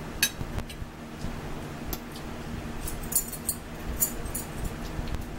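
Metal forks clinking and scraping against plates while eating, a handful of short, sharp clinks scattered through, over a low steady hum.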